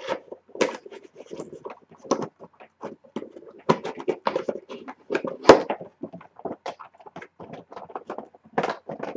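A cardboard Funko Pop box with a plastic window being opened by hand: irregular scratchy crinkling and tearing of cardboard and packaging, with one sharp snap about five and a half seconds in.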